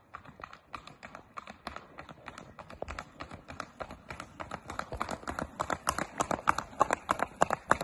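Horse's hooves clip-clopping on an asphalt road in a quick, even rhythm, several hoofbeats a second, growing louder as the horse comes near and passes.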